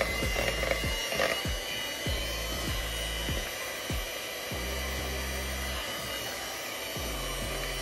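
Electric hand mixer running steadily with a high whine, its wire beaters whipping whole eggs in a glass bowl.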